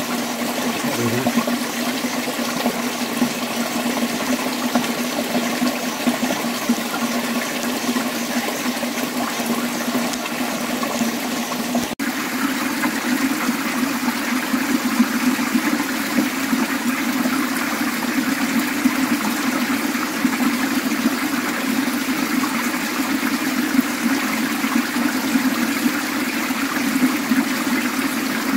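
Shallow, rocky mountain stream flowing steadily, water rushing and splashing over stones. The sound shifts abruptly about twelve seconds in, becoming a closer, more splashing rush.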